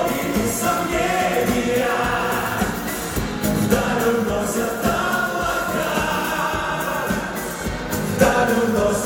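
Music: a group of voices singing a song over instrumental accompaniment.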